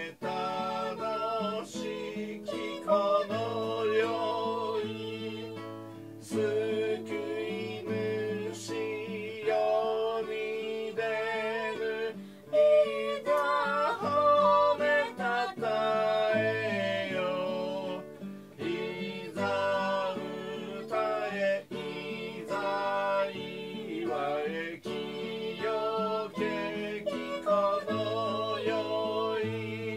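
A hymn sung with vibrato to a strummed acoustic guitar accompaniment.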